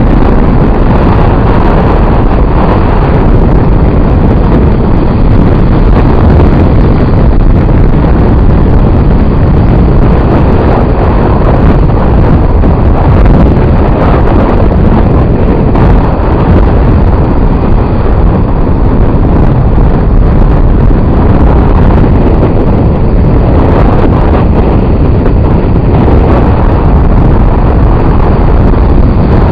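Strong wind buffeting the camera microphone: a loud, unbroken low rumble over the noise of a storm-driven sea.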